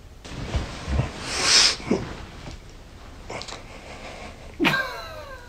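Phone sleep-recorder clip of a person in bed: a breathy, rustling exhale with a couple of low thumps, then about four and a half seconds in a short moan that falls in pitch.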